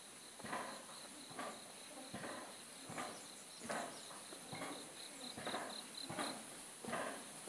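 Crickets chirping in short pulses over a steady high insect hiss, with soft regular knocks a little more than once a second.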